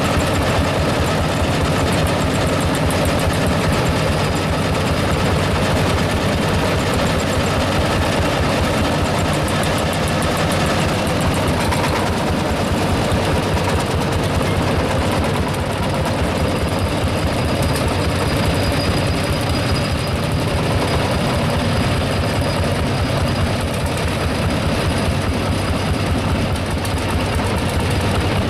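Several single-cylinder two-stroke semi-diesel tractor engines, Lanz Bulldog types among them, running together at once, their overlapping exhaust beats making a steady, dense chugging.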